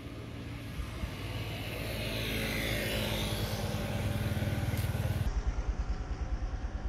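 Motorcycle engine running as it passes on a nearby road, growing louder over the first few seconds with a steady low hum under it.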